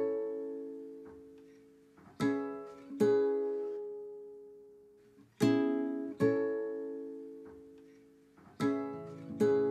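Background music: slow guitar chords struck in pairs, each pair left to ring and fade before the next.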